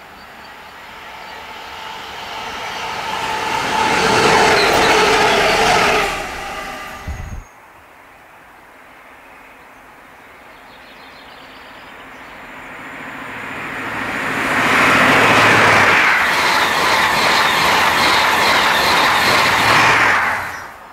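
Two Class 66 diesel locomotives, with two-stroke engines, approach and pass at speed, loudest about four to six seconds in, the sound ending suddenly. Then a High Speed Train with Class 43 diesel power cars approaches and rushes past, loud for the last six seconds before it cuts off suddenly.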